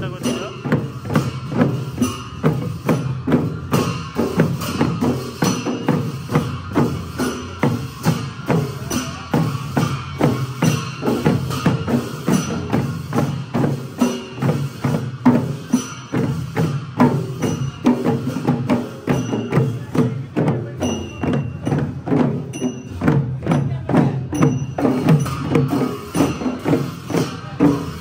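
Traditional Newari festival percussion: drums beaten in a steady, fast rhythm, with small cymbals ringing along.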